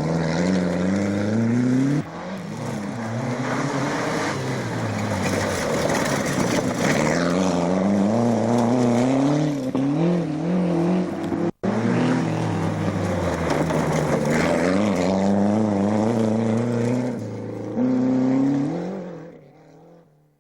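Rally car engines revving hard and climbing through the gears, the pitch rising and dropping again with each shift as the cars go by. The sound breaks off abruptly twice, from one car to the next, and fades out near the end.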